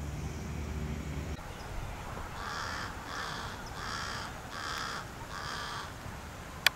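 A bird, likely a crow, giving five harsh, evenly spaced calls of about half a second each. A low steady hum stops about a second in, and a sharp click comes just before the end.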